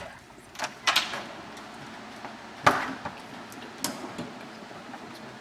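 A heavy commercial door with a closer being worked: a series of sharp clicks and knocks from its latch and hardware, the loudest knock a little under three seconds in.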